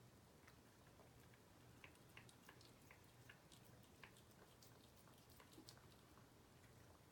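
Faint, irregular wet clicks of a cat chewing raw chicken, several small ticks a second over a low room hum.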